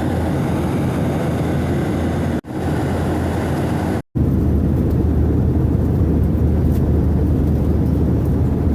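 Steady airplane noise, a low rumble with hiss above it. It dips briefly about two and a half seconds in and cuts out for a moment about four seconds in, then comes back duller, with more rumble and less hiss.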